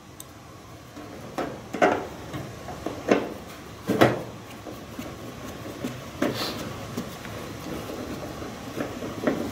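Irregular clicks and knocks of small screws and a Phillips screwdriver against a sheet-metal microwave cover as the cover screws are put back in. There are about six sharp hits, the loudest about two and four seconds in.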